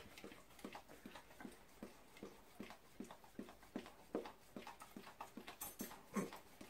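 A chocolate Labrador licking dirty plates in a dishwasher rack: faint, rhythmic licks at about two and a half a second, one a little louder near the end.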